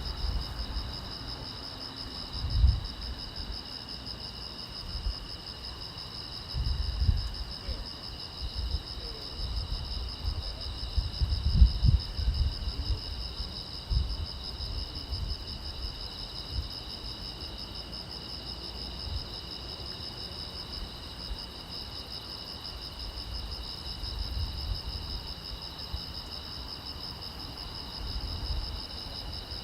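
Crickets chirping in a steady, continuous high trill at several pitches at once. Irregular low rumbles come and go underneath.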